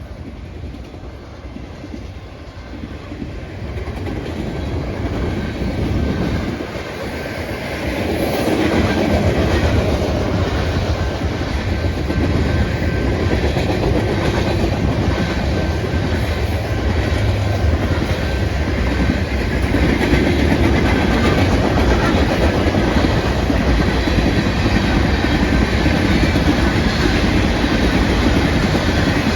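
Freight train passing close by. The locomotives' rumble builds over the first several seconds, then a steady, loud roll of freight cars with the clickety-clack of wheels over the rail joints.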